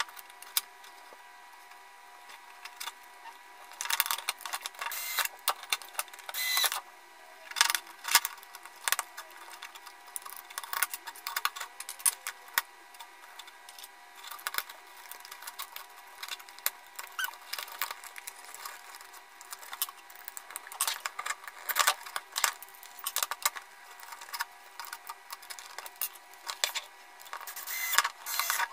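Plastic housing parts, a battery and small screws of an LED solar spotlight being handled and fitted back together by hand: scattered clicks, taps and clatter, with a denser run of clicking near the end. A faint steady hum runs underneath.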